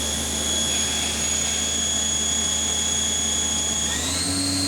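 Spindle of a Takisawa MAC-410V vertical machining center running steadily at 4,000 RPM with a high-pitched whine. The whine steps up in pitch near the end as the spindle speeds up toward 5,000 RPM.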